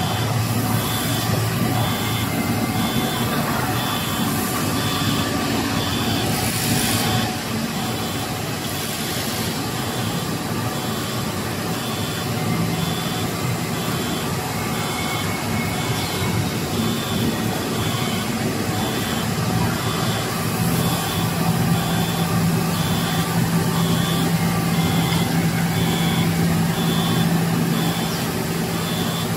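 Xinhuida XHD-65/90/65 three-layer cast stretch film line running: a steady machine hum and whir, with a low tone that grows stronger about halfway through. A short high beep repeats about one and a half times a second throughout.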